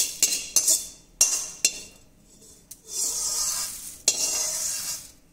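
Slotted metal spatula scraping and knocking against a steel kadai as crisp fried curry leaves are swept out into a steel bowl. There are several quick scrapes in the first couple of seconds, then two longer drags.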